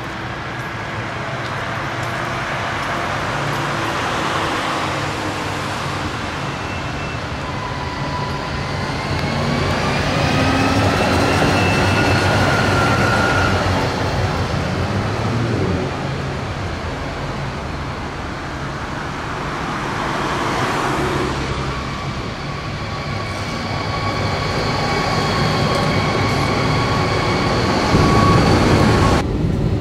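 Zürich Tram 2000 running along street tracks, its rolling rumble and a motor whine that rises in pitch as it passes close, loudest midway. A second tram approaches near the end, with a steady whine.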